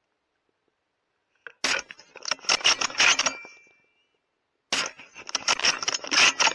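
Two suppressed rifle shots from a bolt-action .308 Winchester, about three seconds apart. Each is followed by the bolt being worked hard, a quick run of metallic clicks and clinks.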